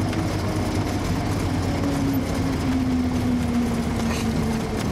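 Single-engine Cessna's piston engine and propeller running at low power, heard from inside the cabin as a steady hum, one tone sinking slowly in pitch as the plane rolls out after landing.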